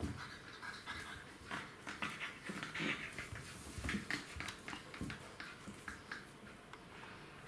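Golden retriever puppies playing: short, irregular whimpers and small calls, mixed with scattered clicks from their claws on a stone floor.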